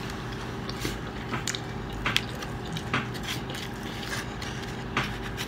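Close-miked chewing of a mouthful of pizza, with wet mouth clicks and smacks at irregular moments, over a steady low hum.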